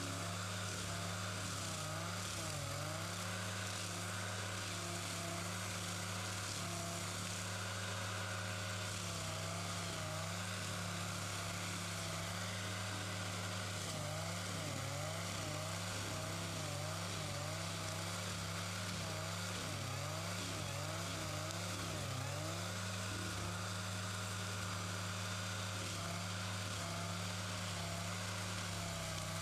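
Heavy forestry machine running steadily with a constant low hum, its pitch dipping briefly again and again, mostly in the middle stretch.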